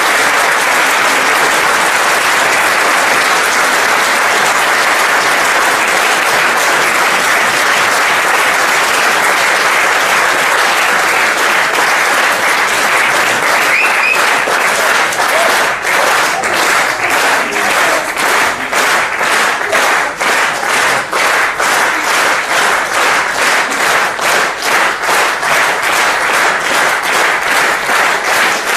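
Theatre audience applauding. About halfway through, the clapping falls into a steady unison beat of roughly two claps a second.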